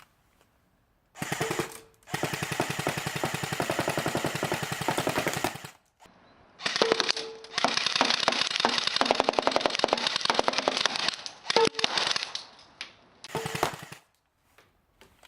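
Electric airsoft Tommy gun firing 0.2 g 6 mm plastic BBs on full auto: a rapid, even rattle in four bursts, a short one, two several seconds long, then a short one near the end.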